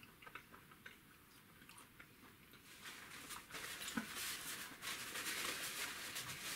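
Faint chewing at first, then, about three seconds in, a paper towel rustling and crinkling as it is used to wipe the mouth and hands.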